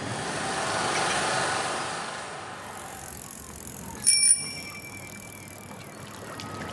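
A soft rushing noise swells and fades, then about four seconds in a small metal bell rings once, its high ring dying away over a couple of seconds.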